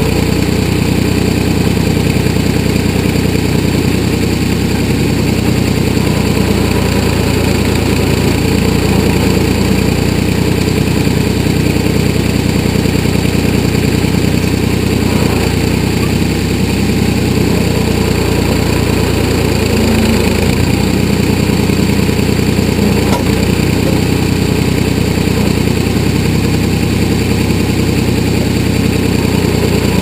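1981 Ford 555 backhoe's engine running steadily at the operator's seat while the boom and ditching bucket are worked through the soil.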